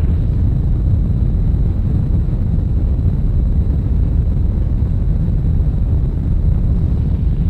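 A loud, steady low rumbling roar with no distinct events in it.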